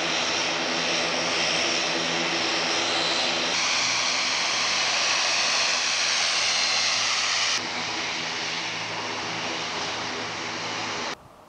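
Airbus C295 turboprop's twin Pratt & Whitney PW127 engines and propellers running as the aircraft taxis: a steady hum of several even tones under a loud hiss. The sound shifts abruptly twice and drops off suddenly near the end.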